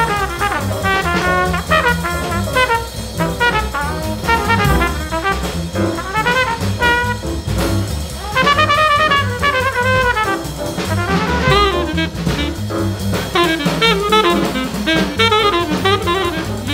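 Instrumental background music with a melody over a steady beat.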